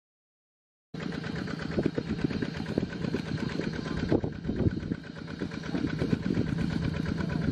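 Dead silence for about the first second, then a small engine running steadily.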